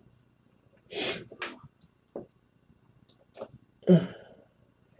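A few short breath sounds from a man close to the microphone, sharp sniffs or huffs, the loudest one near four seconds in.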